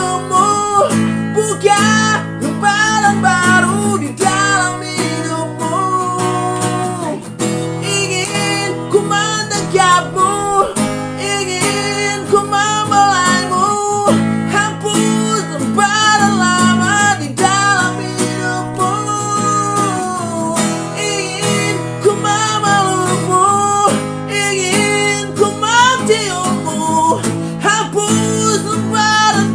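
Background music: a guitar-backed song with a melody line that bends and wavers over steady bass notes.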